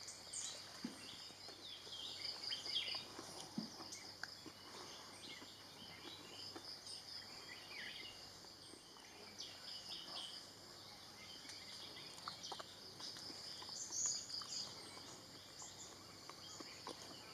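Forest ambience: a steady, high-pitched insect trill with scattered short chirps of small birds, faint overall.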